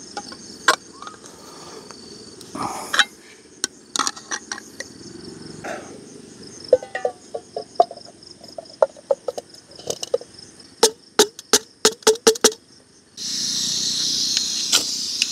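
Night insects chirp steadily throughout. Over them, a hand can opener clicks around a can of chili beans, then a run of quick metal taps about seven seconds in as the beans are knocked out of the can into a small pot. About thirteen seconds in, a steady loud rushing hiss starts, which fits a camp gas stove's burner being lit.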